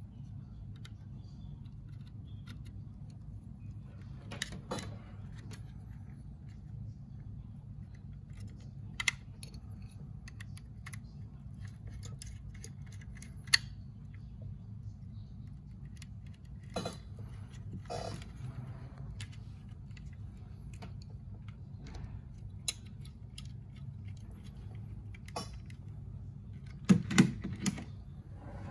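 Handling noise of a plastic thermostat housing and a screwdriver on a table: scattered small clicks and knocks, with a cluster of louder knocks near the end, over a steady low hum.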